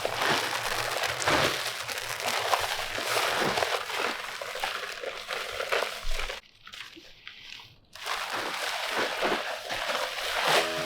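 Crunching and crumpling from working bags of dry concrete mix for a dry-pour slab, many irregular rustles and scrapes, dropping out briefly a little past halfway.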